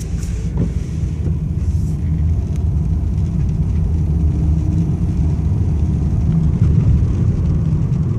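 Steady low rumble of engine and road noise inside the cabin of a 1997 BMW 318i E36 automatic saloon while it is driven along a street, its four-cylinder engine running smoothly.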